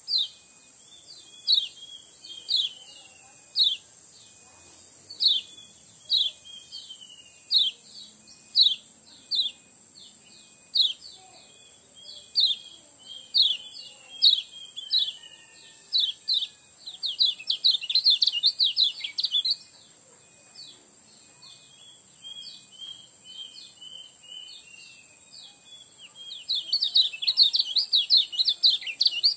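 Kecial kuning songbird calling with short, sharp chirps about once a second, breaking twice into bursts of fast chattering song: once about halfway through and again near the end.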